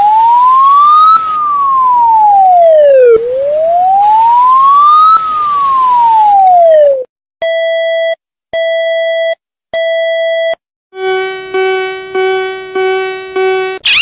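Electronic alarm tones. First a single siren tone slowly rises and falls twice, then three long steady beeps sound, then a quick run of about five lower buzzing pulses.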